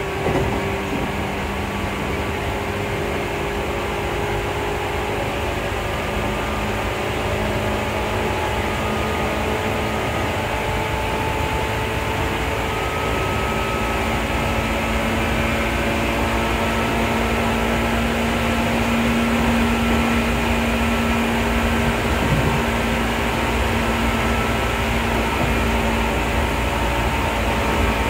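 Seibu 2000 series field-chopper-controlled electric train running, heard from inside a passenger car: a steady rumble of wheels on rail and traction motor noise, with faint whining tones that drift slowly in pitch and a slight swell in loudness in the second half.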